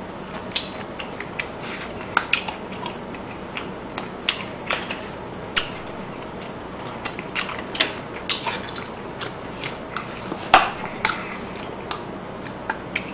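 Close-miked eating sounds: chewing with wet mouth clicks and smacks, and chopsticks tapping plastic takeout containers, as short irregular clicks throughout.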